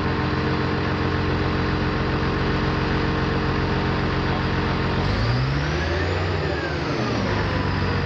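Diesel engine of a self-propelled modular transporter's power pack running steadily, then revving up about five seconds in and dropping back down to its steady run near the end.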